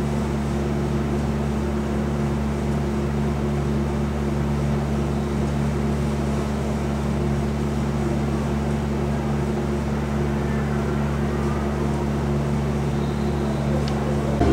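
A steady low hum made of several fixed tones over a light background hiss, unchanging throughout.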